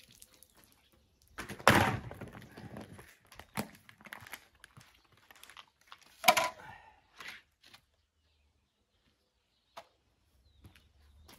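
A roller shutter's slats knocking and clattering on concrete as it is handled and laid flat, with two loud thunks about two and six seconds in and smaller knocks between.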